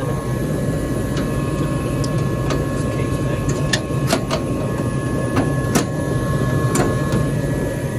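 Gas furnace running with its blower on: a steady low hum and rush of air with a faint steady high tone, running normally. About a dozen short sharp clicks are scattered through it.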